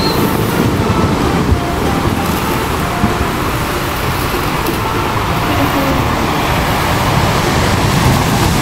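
Steady, loud rushing noise with a low rumble underneath, a sea-and-ship sound effect.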